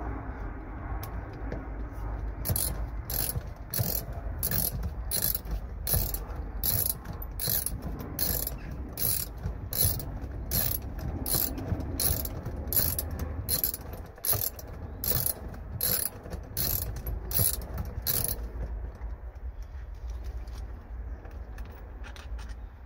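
Ratchet wrench clicking steadily, about one and a half clicks a second, as a seat belt mounting bolt is wound in; the clicking stops a few seconds before the end.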